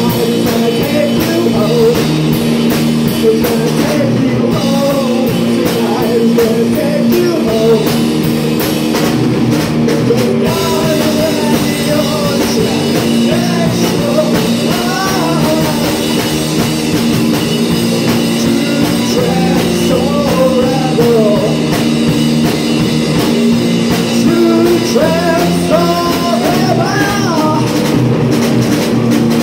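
Live punk rock band playing: distorted electric guitars, bass and drum kit, with a singer's voice coming in over the band at several points.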